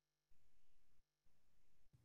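Near silence: faint room hiss that cuts out completely twice, near the start and about a second in.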